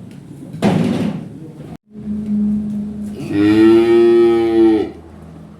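A cow gives one long moo, starting as a low hum and opening into a full call, a bit under two seconds long, near the end. It follows a short noisy burst about half a second in.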